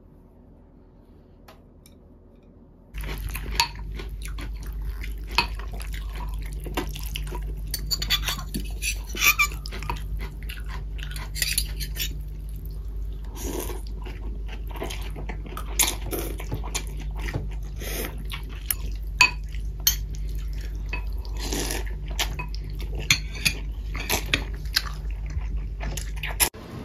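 Metal fork and chopsticks clinking and scraping against ceramic ramen bowls as noodles are eaten, starting about three seconds in, over a steady low hum.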